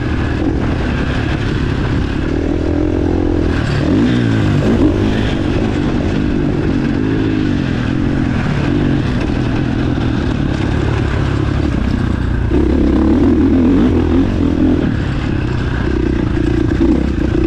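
Motocross bike engine revving up and down again and again as it is ridden hard round a race track, with no break in the sound and a louder stretch about three quarters of the way through.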